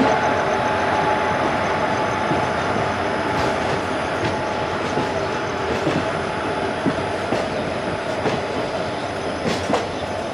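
Passenger train coaches rolling out of a station, heard from on board: a steady rumble of wheels on rail with clacks over joints and points every few seconds. A thin wheel squeal fades out in the first couple of seconds.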